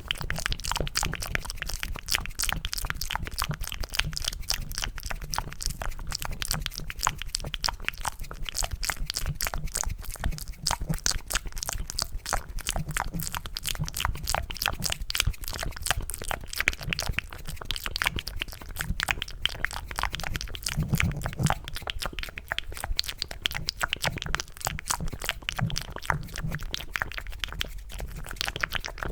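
Wet, rapid mouth clicks and smacks made into cupped hands close to the microphone, imitating the squelch of eating mac and cheese; a dense, continuous crackle of small clicks.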